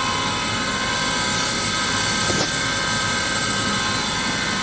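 Haas VF5 vertical machining center's 50-taper spindle, driven through its two-speed gearbox, running steadily at 2000 RPM: several steady tones over an even mechanical hiss and hum, with one faint tick about halfway through.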